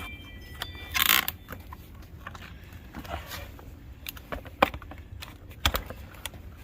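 Scattered metal clanks and knocks from a forced-open steel safe being handled, with a brief harsh scrape about a second in.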